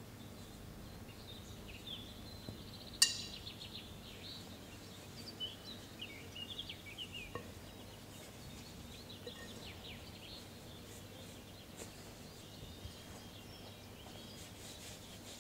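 Birds chirping in short scattered calls over a low steady hum, with one sharp, ringing click about three seconds in.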